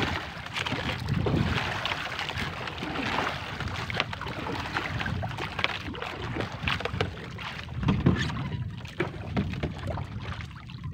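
Wind on the microphone and water slapping against the hull of an outrigger fishing boat while a gill net is hauled aboard by hand, with many short knocks and rustles from the net and boat scattered throughout.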